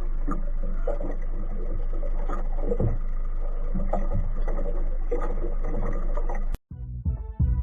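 Steady low rumbling noise that cuts off abruptly near the end.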